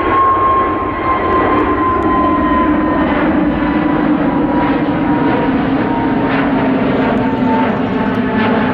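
Airbus A320 jet airliner climbing away after takeoff. Its engines make a loud, steady roar with a whining tone that slowly falls in pitch as the aircraft moves off.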